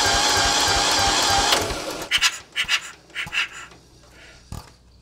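Yanmar YM2000B two-cylinder diesel engine cranking over, with slow regular compression thumps about five a second, until it stops abruptly about a second and a half in. Then a few short metallic clicks and taps.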